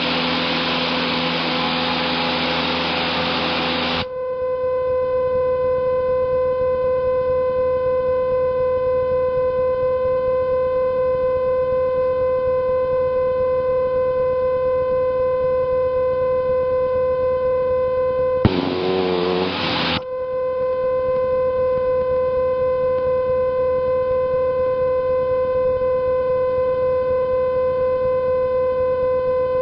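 Cessna 150 cabin noise, an even roar of engine and wind, cuts off about four seconds in. A steady, unchanging tone with overtones replaces it, broken once by a second or two of the same cabin roar.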